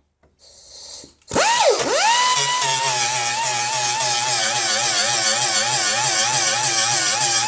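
Handheld electric power tool starting about a second in, its whine dipping and then climbing before it settles into a steady, slightly wavering run, with a hiss over it. It is being used to clean the dented door's metal to bare for the stud welder.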